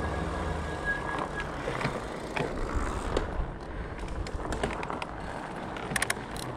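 Fatbike riding: a steady low rumble of fat tyres rolling and wind on the helmet camera, with a brief high squeal lasting about a second and a half near the start and a few sharp clicks about six seconds in.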